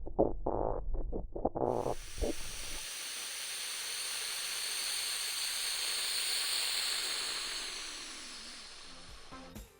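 A few short low pulses, then a long, steady rush of air hiss that swells and fades away over about seven seconds: an inflation sound effect of air being pumped in.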